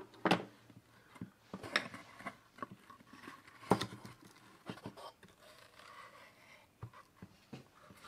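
Scattered sharp clicks, knocks and light scraping of pliers and hands working on a weathered wooden birdhouse as its front panel is freed and swung open.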